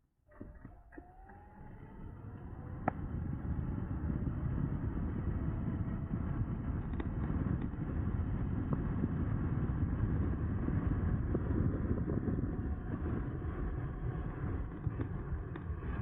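Wind rushing over the microphone and road noise as the e-bike gathers speed, with the Bafang BBSHD mid-drive motor's whine rising in pitch over the first few seconds.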